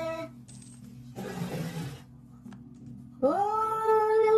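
Cat giving a drawn-out, wavering yowl that breaks off, a short hiss, then a long, steady yowl again from about three seconds in. This is the warning yowling of a cat in a standoff with another cat.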